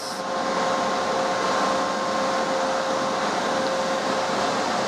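Cooling fans of a 2 kW FM broadcast amplifier running steadily: an even rush of air with a faint hum in it.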